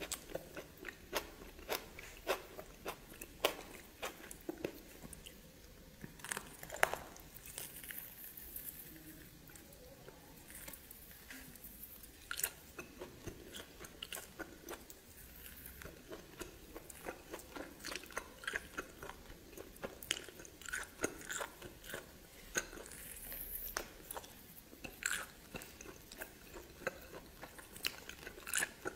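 A person chewing and biting steamed snake, with many irregular sharp crunches, several a second at times.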